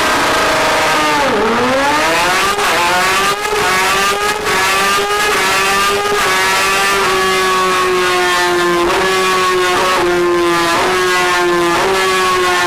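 Yamaha R6 600 cc inline-four sport bike engine at high revs. The pitch falls about a second in, then climbs again in a long run of rising steps, each broken by a brief dip.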